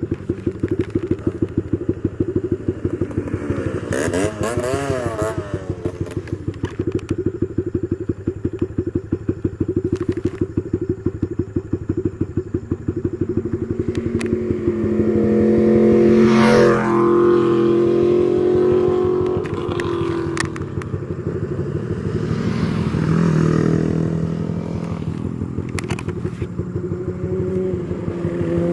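Motorcycle engine running under way, a steady rapid pulsing whose pitch shifts up and down several times in the second half as the revs change.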